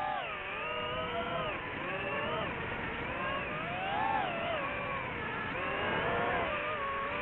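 DJI FPV drone's motors and propellers whining, several tones that rise and fall together as the throttle changes in flight.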